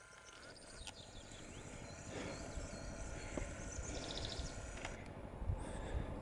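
Wind rumbling on the microphone, swelling in gusts, with a few faint bird chirps and a short rapid bird trill about four seconds in.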